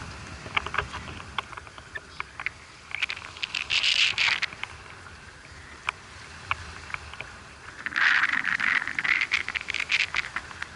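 Large spinning reel ratcheting under the pull of a hooked tuna, in two bursts of rapid clicking about three and eight seconds in, with scattered single clicks between them. A low steady rumble from the boat lies underneath.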